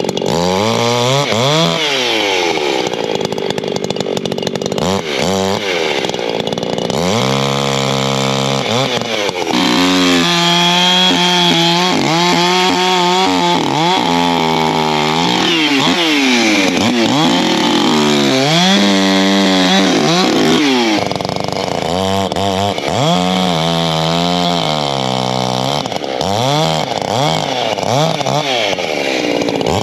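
Two-stroke Echo chainsaw bucking firewood. The engine revs up and falls back again and again, with longer stretches held at high revs as it works through cuts.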